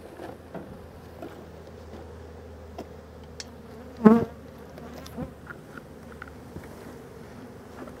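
A disturbed honeybee colony buzzing, with many bees flying around in a steady hum. One louder buzz comes about four seconds in, and there are a few light knocks.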